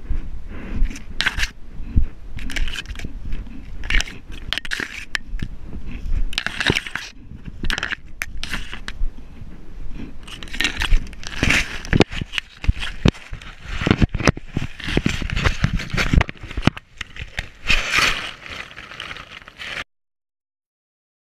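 Leopard chewing and biting on a GoPro camera held in its mouth: irregular crunches, clicks and scrapes of teeth on the plastic housing, with low knocks as it is jostled. The sound cuts off abruptly near the end.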